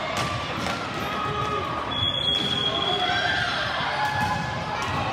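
Ball hockey play echoing in a large hall: players' voices calling out over scattered clacks of sticks and the ball on the plastic sport-court floor. A brief steady high tone sounds about two seconds in.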